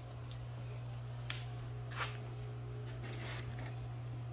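Foam packing sheet rustling softly as it is handled around a carbon-fibre intake part, with a couple of light ticks, over a steady low hum.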